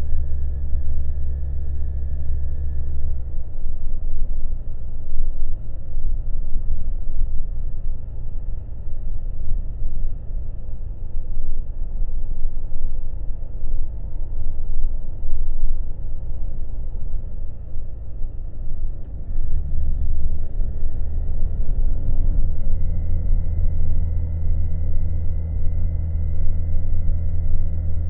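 Honda Monkey's single-cylinder four-stroke engine running under way, heard with rushing wind and road noise. About three seconds in the steady engine note drops away and only the low rush of wind and tyres is left, as if the throttle is closed. Around twenty seconds in the engine note comes back strongly as the throttle reopens.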